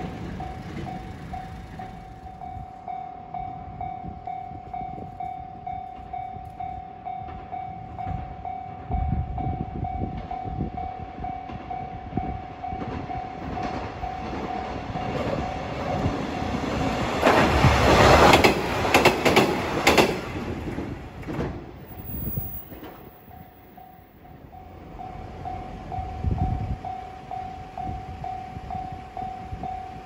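Level-crossing warning bell ringing steadily while a two-car KiHa 120 diesel railcar comes in and passes, loudest about 17 to 21 seconds in with quick wheel clatter over the rail joints. The bell falls silent for a few seconds after the train and starts again near 25 seconds as the next train approaches.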